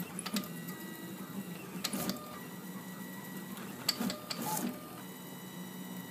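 Rapman 3D printer printing: its stepper motors whine in steady tones that switch on, off and change as the extruder head moves, over a steady low hum, with a few short clicks.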